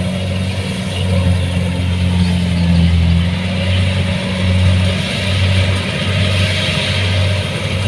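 Kubota DC-70 Plus combine harvester's diesel engine running steadily, a continuous low hum that swells and eases slightly, with a hiss of machinery noise above it.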